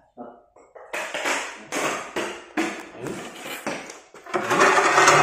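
Loose ceramic floor tiles scraping and knocking as they are lifted and shifted over the rough, chipped floor bed: a run of short scrapes and clacks, the longest and loudest near the end. The tiles have lost their grip on the floor.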